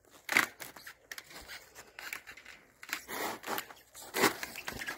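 Footsteps crunching in packed snow: a handful of uneven steps, each a short gritty crunch.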